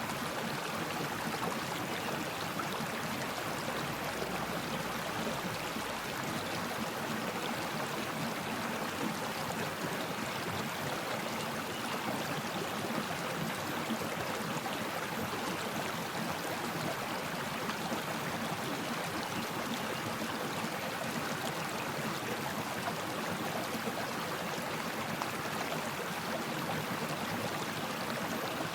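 Stream of water flowing steadily over rocks, a continuous even rush and babble with no breaks.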